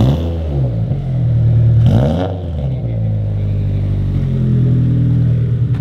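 Boosted, E85-tuned Subaru BRZ's flat-four idling loudly through a large single-tip exhaust, a steady low drone. Near the start and about two seconds in, the note briefly wavers and swings back.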